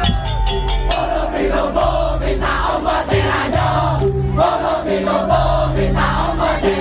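Madurese tong-tong ensemble playing live: a rhythmic pattern of bright repeated notes over deep held bass tones, with crowd noise mixed in.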